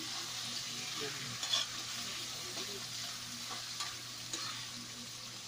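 Chicken pieces sizzling in hot oil in a wok while a metal ladle stirs them, with a steady hiss and a few light clinks and scrapes of the ladle against the pan.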